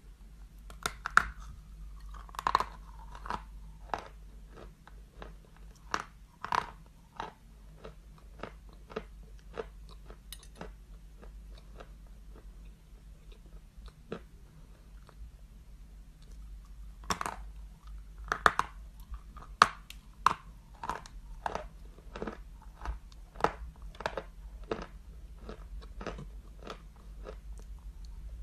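Biting into and chewing a stick of chalk: sharp, crackling crunches come thick in two spells, at the start and again from about halfway on, with sparser, softer chewing between them.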